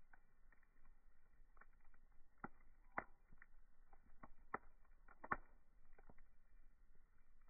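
Near silence with faint scattered clicks and ticks, two sharper ones about three and five seconds in.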